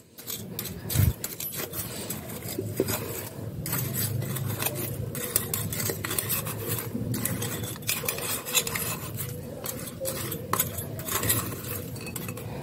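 Rock salt being shaken out of a steel bowl onto dried spices in a ceramic bowl. The steel bowl makes repeated light clinks and scrapes, with one sharper knock about a second in.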